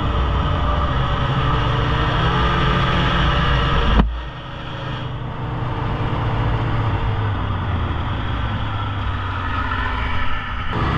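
Polaris Indy snowmobile engine running steadily; about four seconds in the sound changes sharply and drops in level, then slowly builds back up.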